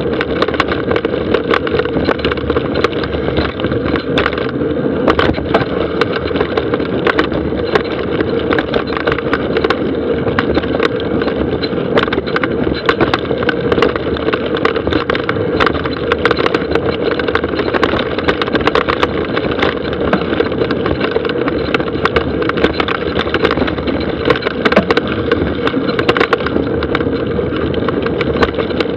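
Mountain bike rolling fast down a dry, hard-packed dirt trail: continuous tyre noise with constant rattling, clicks and knocks from the bike over bumps and roots.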